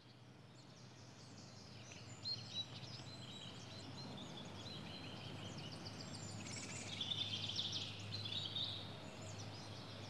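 Woodland ambience fading in: several birds chirping and trilling over a steady low hum, with the busiest chirping about seven seconds in.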